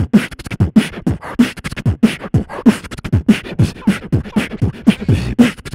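Beatboxing as a soundtrack: vocal percussion in a steady, fast beat of deep kick-like thumps, about three a second, mixed with sharp clicks and hisses.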